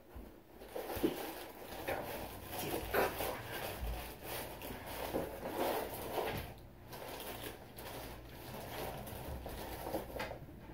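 Plastic wrapping crinkling and a fabric carrying bag rustling, with irregular crackles, as a plastic-wrapped tripod is pulled out of its bag.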